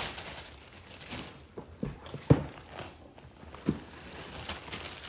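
Plastic and paper packaging rustling as it is handled and pulled from a cardboard box, with a few short knocks, the sharpest about two seconds in.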